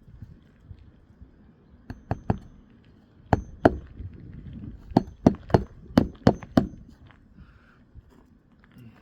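Hammer blows on roofing nails in a shingle roof, each with a slight metallic ring: a few scattered strikes, then a quick run of six, about three a second.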